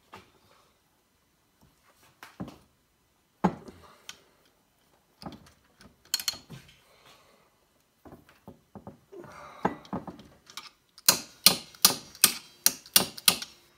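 Metal hand tools clicking and clanking on the flywheel of a KTM 65 two-stroke engine: a ratchet wrench working the flywheel nut while locking pliers hold the flywheel. Near the end comes a quick run of sharp ratchet clicks, about three a second.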